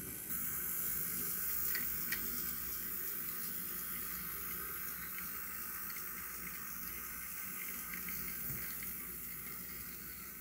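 OO-gauge model Class 08 diesel shunter running along its track: a steady whirring hiss from the small motor and wheels on the rails, with a couple of sharp clicks about two seconds in.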